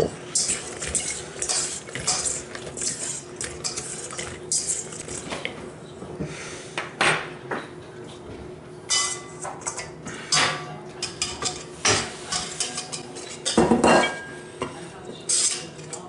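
Utensils clinking and scraping against a bowl in irregular clatters as sauced chicken wings are moved into a serving bowl, over a faint steady hum.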